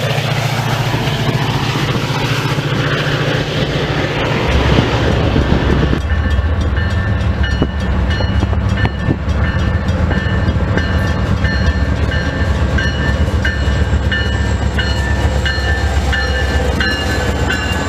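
A Metra F40PH diesel commuter locomotive running past with its train. About six seconds in, the sound cuts to BNSF diesel freight locomotives passing close, their engines rumbling steadily under the noise of wheels on the rails.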